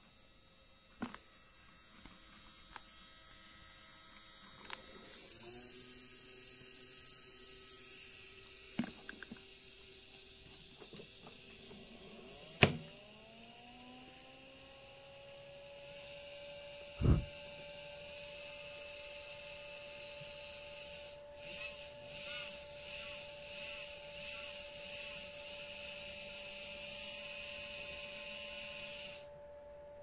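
LG WD-14370FD direct-drive front-loading washing machine starting a wash: a few light clicks, then a loud clunk as the door is shut. An electric whine rises in pitch and settles into a steady tone, another thud follows, and a hiss runs on until it cuts off suddenly near the end.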